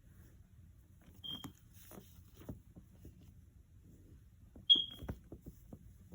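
A young rescued bird cheeping twice: short high single-pitched chirps, the second one louder, among soft scattered taps and scuffles.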